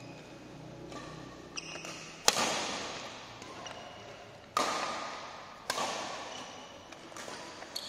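Badminton racket strikes on a shuttlecock during a fast doubles rally: sharp hits every second or two, the loudest about two seconds in, each ringing on in the large hall.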